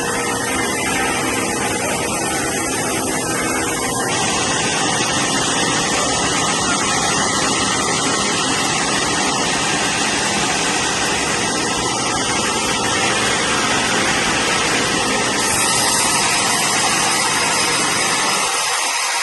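Sawmill machinery running steadily with a loud, dense noise and an engine hum underneath, changing slightly in character a few times.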